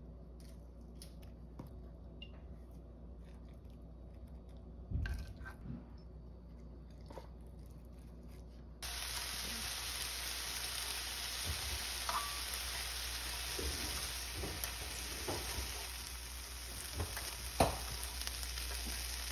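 Soft handling sounds at a plate, with one knock about five seconds in. Then, starting suddenly about nine seconds in, slices of ham sizzling steadily in a ridged grill pan, with light clicks as chopsticks turn them.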